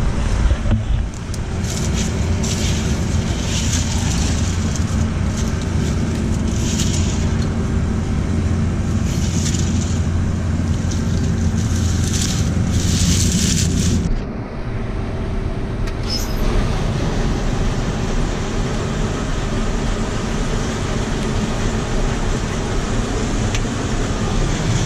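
Combine running with its soybean header engaged to clear the last beans out, a steady loud mechanical drone with repeated short rattling swishes. About fourteen seconds in, the drone drops and the engine keeps running on its own.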